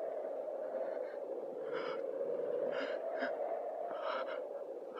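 A steady droning hum from the film's soundtrack, with a few short breathy gasps over it about two, three and four seconds in.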